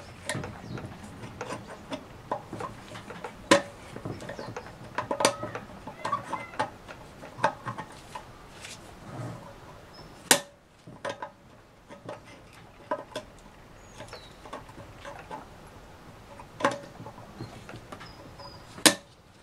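A hand tool working at the servo snap ring of a Ford 5R55S automatic transmission: irregular metal-on-metal clicks and scrapes, with a few sharper, louder clicks along the way.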